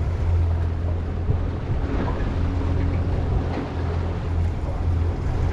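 Boat motor running steadily at low speed, a continuous low hum.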